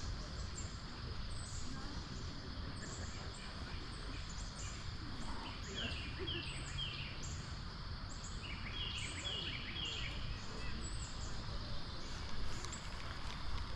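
Steady rushing of a trout stream. Over it a small bird chirps in two quick runs of about three notes each, roughly six and nine seconds in.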